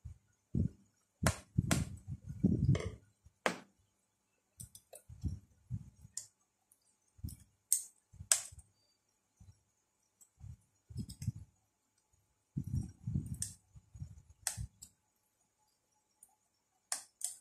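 A screwdriver and small laptop parts handled on a workbench around a laptop motherboard and its cooling fan: irregular sharp clicks and taps mixed with low knocks and thuds, coming in short uneven clusters.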